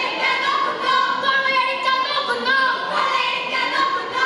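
A group of girls singing together in unison, holding long notes that bend in pitch.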